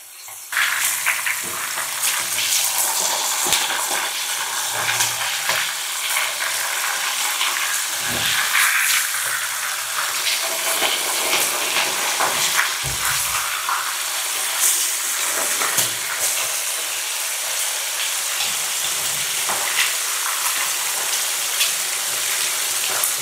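Pork belly slices frying in hot oil in a pan over medium heat: a steady sizzle with scattered small crackles and pops, starting about half a second in.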